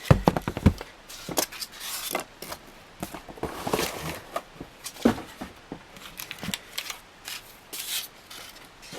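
Ceiling fan blades and their packaging being handled: a quick run of knocks near the start, then scattered taps and rustling.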